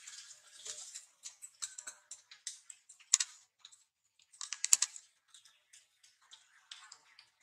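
Dry leaf litter crackling and rustling in irregular short clicks as monkeys move over it, with a few sharper snaps, the loudest a little past the middle.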